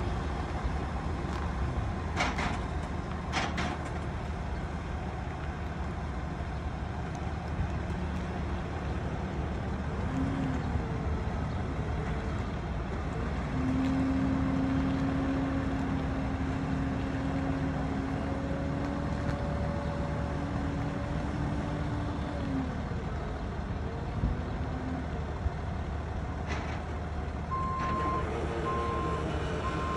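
Heavy truck engines running steadily, with a steadier drone rising for about ten seconds in the middle. Near the end a truck's reversing alarm starts beeping at an even pace.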